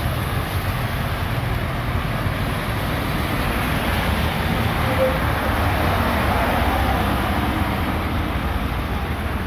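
Steady hiss of heavy rain on a city street, with cars and a bus driving through the wet road, their tyres swishing through standing water.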